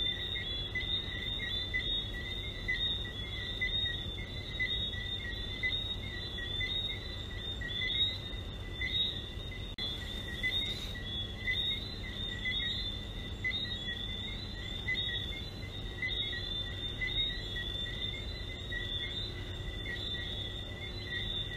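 Chorus of small Caribbean frogs: many high-pitched chirps overlapping without pause, in two pitch levels, over a low steady rumble.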